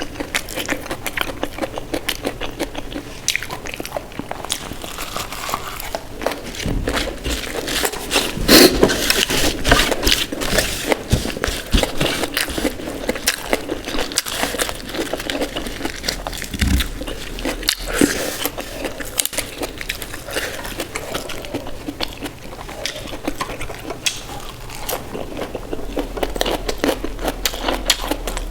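Close-miked eating sounds: a person chewing and biting through a meal of dal, rice and mashed potato, with crackling, crunchy bites and scrapes. The sounds run as a dense stream of small clicks, with a louder bite or crunch about eight seconds in.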